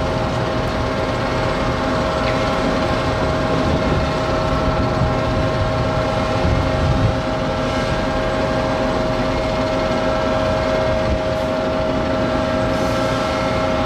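Steady machinery drone with a constant hum at several fixed pitches, with the low rumble of a tractor-trailer rolling slowly past, swelling briefly about seven seconds in.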